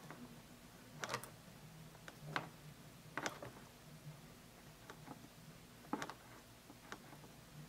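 Faint, scattered clicks and light rustles of wires and a small tool being handled on a workbench, about five in all, over a faint steady low hum.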